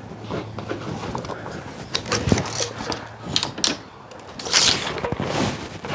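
Scattered knocks, clicks and a brief scrape of timber and tools being handled during framing work, over a faint steady low hum.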